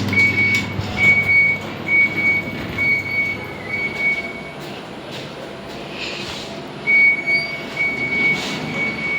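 Lift's electronic buzzer beeping on one high pitch, just under one beep a second. It pauses for about two seconds midway, then starts again.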